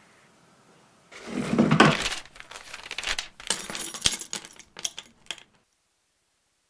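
Rustling and clattering of small objects being handled, with several sharp clicks and knocks; the sound cuts off to dead silence shortly before the end.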